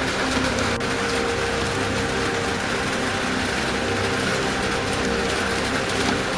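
Heavy monsoon rain falling steadily, an even hiss, with a low steady hum of held tones underneath.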